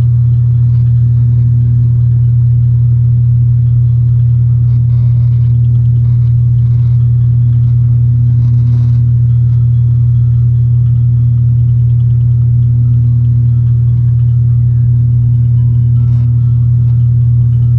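Turboprop engines and propellers of an ATR 72-500, heard inside the cabin from a seat beside the engine: a loud, steady low drone that does not change.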